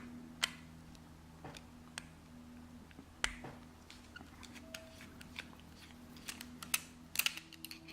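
Scattered light clicks and taps of a metal padlock being handled for disassembly, a few close together near the end, over a faint steady low hum.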